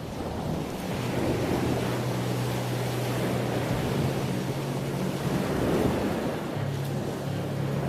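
Sea surf and wind noise, with a steady low hum underneath that shifts in pitch near the end.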